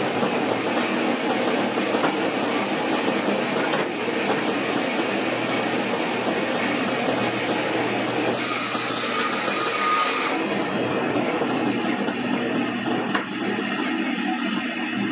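Sliding-table panel saw running steadily as a board is fed through its blade: a constant motor hum under a loud hiss. The higher hiss fades about two-thirds of the way through while the saw keeps running.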